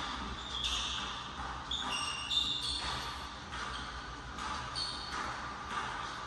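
Basketball shoes squeaking on a hardwood gym floor in short, high squeals as the players cut and defend, with a basketball bouncing on the court.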